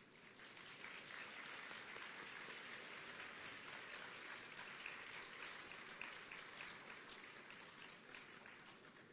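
Faint audience applause, many hands clapping, building over the first second and tapering off near the end.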